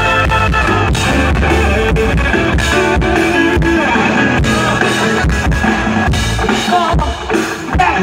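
Live band music with a drum kit, guitar and bass playing a pop song's instrumental passage, with a steady drum beat.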